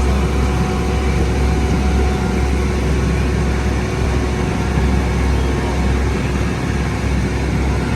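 Tour boat's engine running steadily under way: a constant low drone with an even hiss over it.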